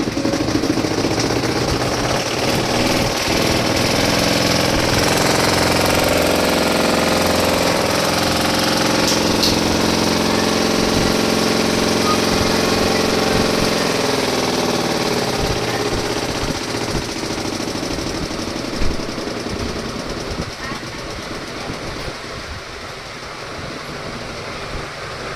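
Washing machine running with a loud rattling, knocking noise from the drum, the noise fault the machine is being repaired for. A motor whine climbs in pitch over the first several seconds, holds, then falls away in the second half as the drum slows.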